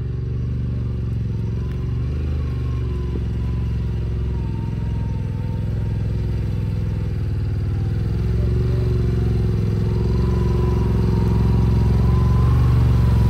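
Yamaha Wolverine RMAX 1000's parallel-twin engine running under load at low speed as the side-by-side climbs a steep rut, growing steadily louder as it comes closer, with a faint whine above the engine note.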